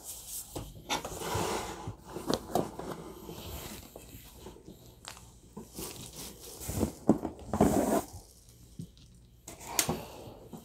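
Rustling and crinkling of packaging and small objects knocking together as figurines are lifted out of a cardboard box and handled, in irregular bursts that are loudest a little past halfway.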